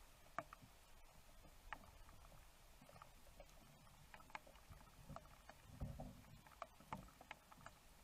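Small sparrows feeding at a plastic seed feeder: faint, scattered, irregular sharp taps and ticks from beaks pecking seed against the tray. There is a soft low thump about six seconds in.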